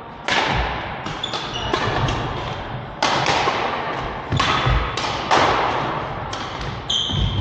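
Badminton rally: about seven sharp racket strikes on the shuttlecock, roughly one a second, each echoing in a large hall, with short squeaks of court shoes between them.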